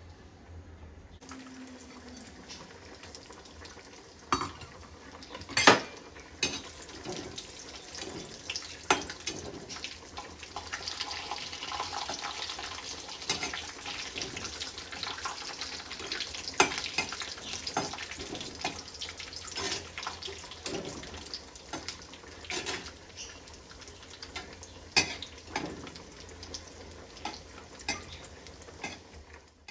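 Cashews and raisins frying in ghee in a pan, a steady sizzle. A spoon clinks and scrapes against the pan every few seconds as they are stirred.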